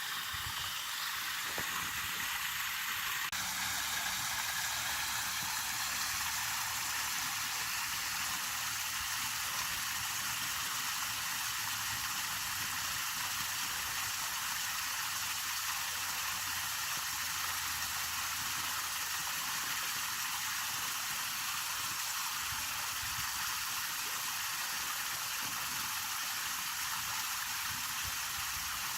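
Water from a small garden gabion waterfall splashing and trickling steadily, a continuous hiss-like rush of falling water.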